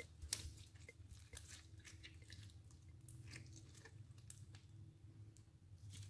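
Clear slime squeezed and stretched by hand, giving faint, irregular crackles and small popping clicks.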